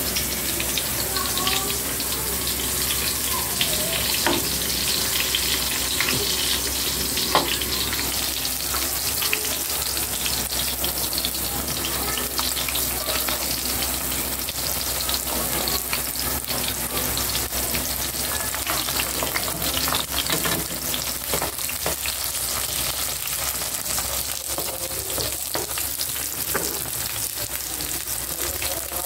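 Eggplant slices frying in shallow oil in a pan: a steady sizzle and crackle, with a few sharper clicks in the first several seconds.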